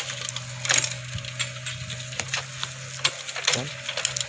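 Irregular cracking and snapping of dry sugarcane stalks over the steady low hum of a mini excavator's diesel engine running.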